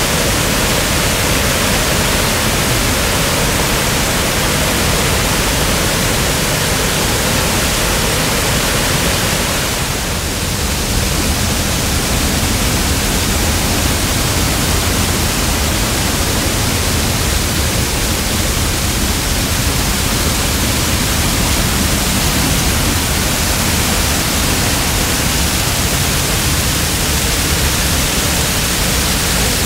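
Chagrin Falls in flood after heavy rainfall: a loud, steady roar of rushing water, briefly a little softer about ten seconds in.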